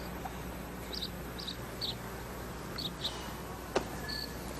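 Sparse, short high-pitched bird chirps over a quiet, steady background hum, with a single sharp click a little before the end.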